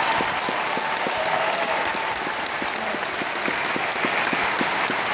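Audience applauding at the end of a song: many hands clapping steadily.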